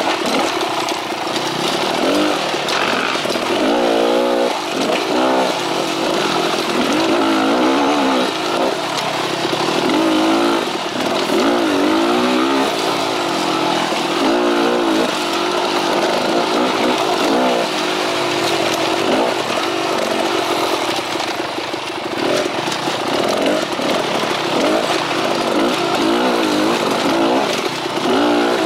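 Two-stroke Beta X-Trainer dirt bike engine running under the rider, its revs rising and falling over and over with the throttle.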